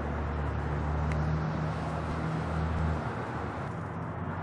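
A low, steady engine hum over a constant hiss of background noise, fading out about three seconds in.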